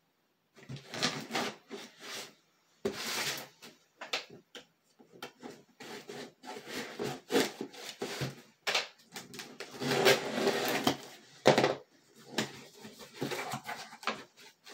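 A package being opened by hand: irregular rubbing, scraping and rustling of the packaging in short uneven bursts.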